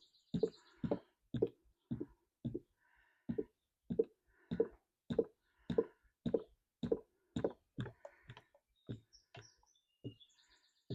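Motor oil glugging out of a jug into an engine's oil filler, a regular gulp about twice a second, stopping near the end.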